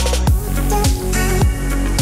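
Background electronic music: held bass and synth notes, with a deep kick drum coming in about a quarter-second in and hitting on a steady beat, roughly two a second.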